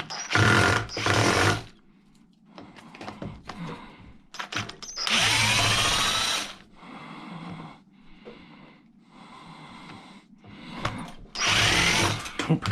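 Power drill-driver run in four short bursts, backing out the Phillips screws that hold a small fan in an old battery charger; the longest burst, about five seconds in, winds up with a rising whine. Light knocks and metal clatter of handling fill the gaps.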